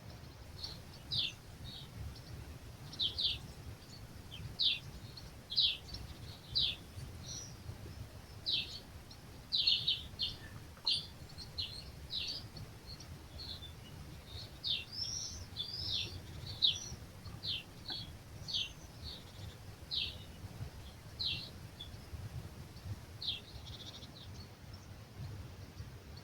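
Small songbirds chirping: short, high, downward-sliding chirps about one or two a second, over a steady low rumble of breeze.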